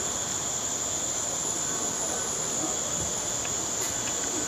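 Crickets chorusing at night: one steady, unbroken high-pitched trill.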